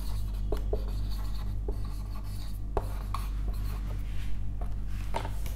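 Whiteboard marker rubbing across the board in short strokes as a word is written, with a few light taps of the pen tip. A steady low hum runs underneath.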